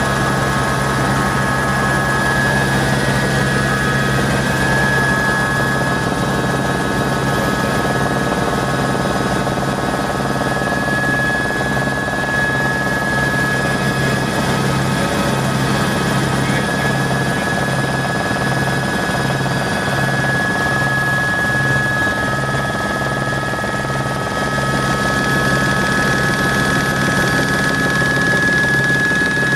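Sightseeing helicopter in flight, heard from inside the cabin: a steady high turbine whine over even engine and rotor noise, with a low hum that pulses evenly in the second half.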